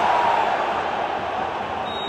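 Stadium crowd of football fans roaring, with a steady high tone held within the noise that fades out in the first second; the crowd noise eases off across the two seconds.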